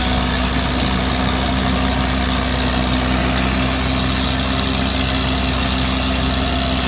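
Diesel engines of a Mahindra 585 and a Farmtrac 45 tractor running steadily under heavy load as they pull against each other in a tug-of-war.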